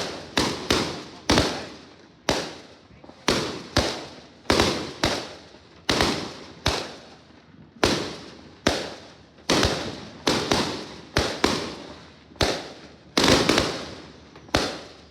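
Fireworks bursting in quick succession: sharp bangs one or two a second, each trailing off in a short echoing rumble.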